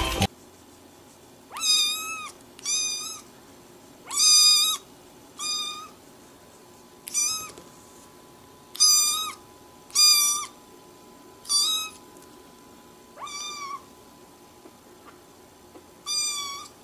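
A young kitten mewing repeatedly: about ten short, high-pitched meows, roughly one every second or two, with a longer gap near the end.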